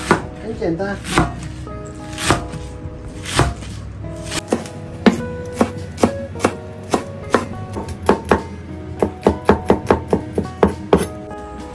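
Chinese cleaver chopping green onions on a wooden cutting board: separate chops about a second apart at first, quickening to about four a second in the last few seconds.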